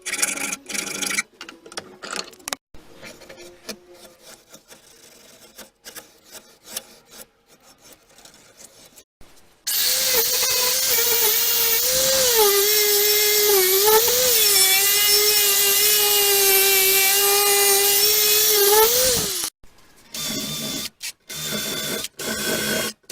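An electric power tool runs for about ten seconds with a steady whine, its pitch dipping briefly several times as it is loaded against the work, in rust removal on an old steel bar clamp. Before it come quieter short clips of handwork, and after it short choppy bursts.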